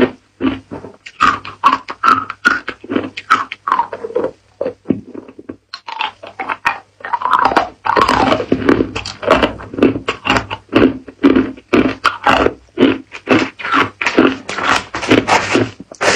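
Hard, clear ice cubes bitten and crunched between the teeth, close to the microphone: a rapid run of sharp crunches, several a second. It pauses briefly about five and a half seconds in, then resumes as a denser, louder stretch of chewing.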